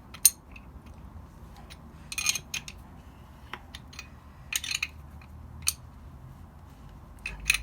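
Steel spanner clinking against a brake pipe flaring tool as its forcing screw is tightened down, a handful of sharp metallic clinks spaced a second or two apart.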